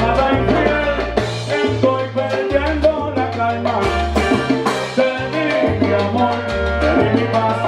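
Live salsa band playing, with congas and a bass line that steps between notes under dense instrumental parts.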